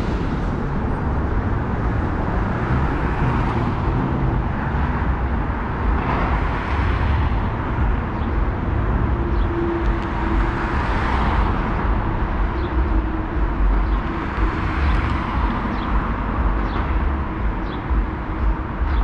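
City street traffic: cars passing through an intersection, each swelling and fading over a steady low rumble. A few short high chirps come in over the last several seconds.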